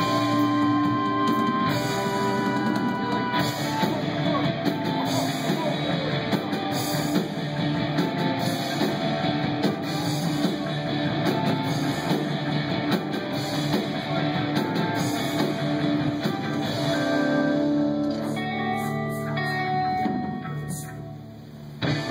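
Live band playing, with guitar and drum kit to the fore. The music thins out and drops in level briefly near the end, then comes back loud.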